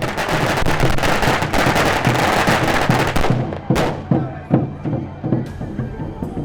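A string of firecrackers going off in a dense, rapid crackle for about three seconds, then thinning to scattered louder single bangs, with music underneath.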